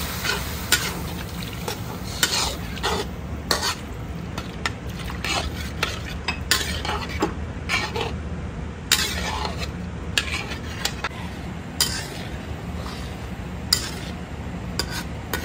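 Metal ladle stirring and scraping against a stainless steel wok, with irregular clinks and taps, as prawns and chilli are stirred in a watery sauce that is heating up with a faint sizzle. A steady low hum runs beneath.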